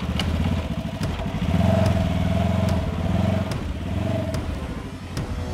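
Polaris General UTV's twin-cylinder engine running as it drives across a forest slope. It rises in revs about a second and a half in and eases back off towards the end, with a few sharp clicks over it.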